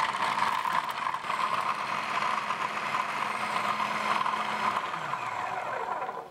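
Electric food processor running, its spinning blade grinding baked oat biscuits and melted butter into crumbs; a steady motor hum with the crumbs churning in the bowl, stopping shortly before the end.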